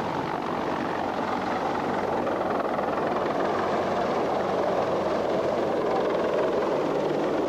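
Large helicopter with one main rotor and a tail rotor, flying with a crushed car slung beneath it: steady rotor and engine noise that grows a little louder as it comes on.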